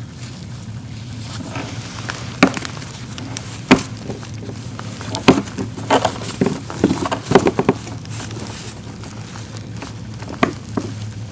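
Handling noise from tying off an anchor rope on a plastic sit-on-top kayak: scattered knocks, taps and rope rubbing against the hull and fittings, busiest in the middle, over a steady low hum.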